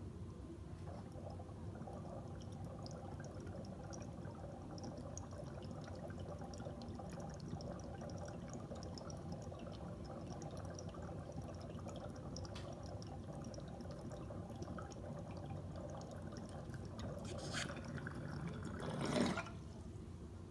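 Glass water bubbler gurgling steadily as air is drawn through its water and percolator during one long, slow draw, with a brief louder noise near the end.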